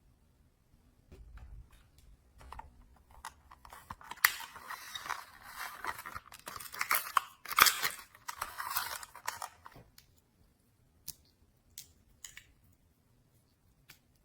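Slime being squeezed and worked by hand, a dense run of crackling and popping clicks from about four to ten seconds in, then a few scattered clicks.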